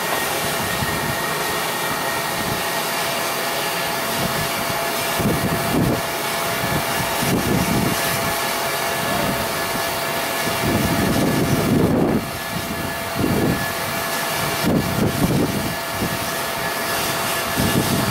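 Steady loud hiss and rumble from a steam train, with a few faint steady tones running through it and uneven low rumbles coming and going in the second half.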